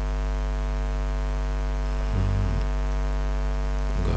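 Steady electrical mains hum with a stack of evenly spaced overtones, running under the recording. A brief low voiced murmur comes about two seconds in.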